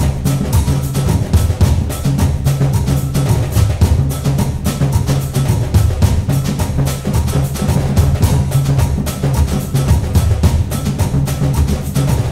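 Background music: rapid, busy percussion over a steady low bass line.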